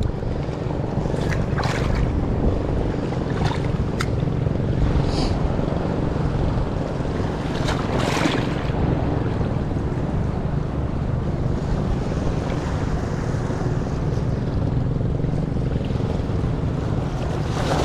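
Small boat's engine running steadily, with wind buffeting the microphone and waves washing around the hull; a few short splashes or knocks stand out, the loudest about eight seconds in.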